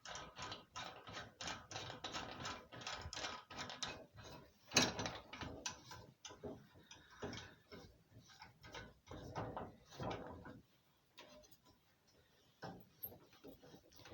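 A clamp being worked and tightened down on a steel lawn mower blade: a run of quick ratchet-like clicks, with a louder knock about five seconds in. The clicking stops about ten and a half seconds in, leaving only a few faint ticks.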